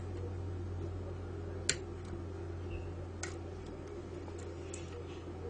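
Lock pick clicking against the pins of a Mul-T-Lock cylinder held under tension: a half-diamond pick setting the interior telescopic pins. A few small, sharp clicks come at uneven intervals over a steady low hum.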